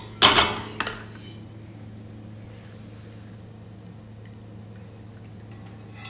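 Beaten egg mixture poured from a stainless steel bowl into a nonstick pan on low heat, with a wire whisk guiding it out of the bowl. Two sharp scrapes or clanks of utensil and metal come in the first second, then the faint, steady pour.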